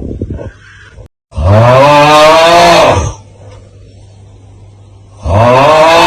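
The "Aauuggh" meme sound: a man's loud, strained groaning yell, its pitch rising and then falling. It comes twice, once from about a second in for nearly two seconds and again starting near the end, with a brief crackly sound and a short dropout before the first.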